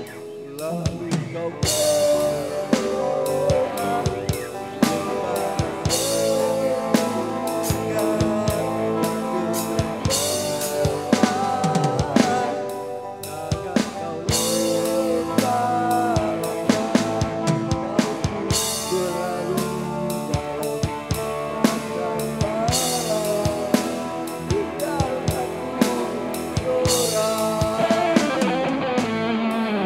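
Live band playing a song: a drum kit keeps the beat with kick, snare and cymbals under electric guitar and bending melody lines.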